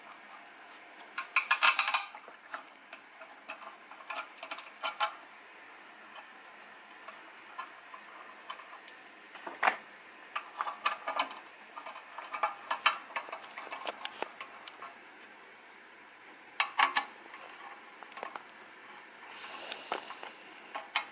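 Scattered sharp metallic clicks and clinks of hand tools and metal parts being handled while working on a motorcycle, with short runs of rapid clicking about two seconds in and again in the second half.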